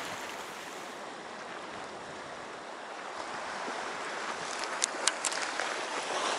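Sea washing against a rocky shore with wind, an even hiss of waves, and a few sharp clicks about five seconds in.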